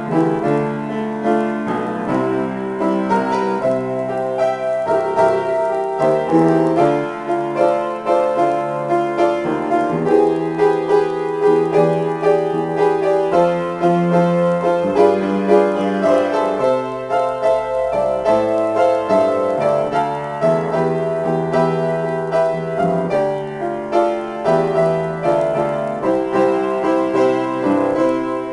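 Grand piano played solo, an improvised piece: a continuous flow of chords and melody with no pauses.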